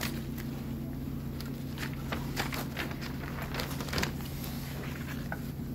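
Room tone: a steady low hum with scattered small clicks and rustles.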